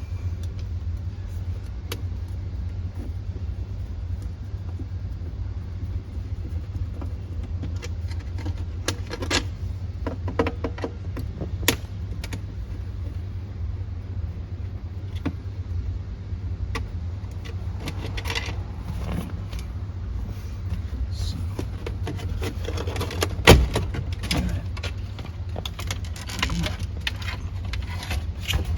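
Small metallic clicks, clinks and rattles from a screwdriver and loose screws as a car's center console top is unscrewed and pried up, with one sharp knock about two-thirds of the way through. A steady low hum runs underneath.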